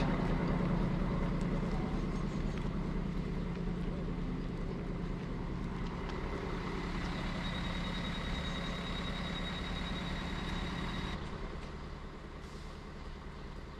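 Czech Class 811 diesel railcar idling at the platform: a steady engine hum that slowly fades, with a thin high whine for a few seconds. The hum drops away suddenly about eleven seconds in, leaving a quieter outdoor background.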